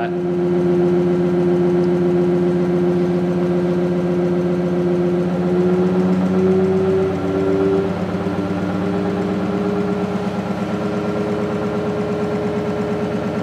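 Pulsed DC stepper motor test rig running with a steady hum of several tones. About seven seconds in, the pitch shifts and a fast, even pulsing sets in as the motor speeds up.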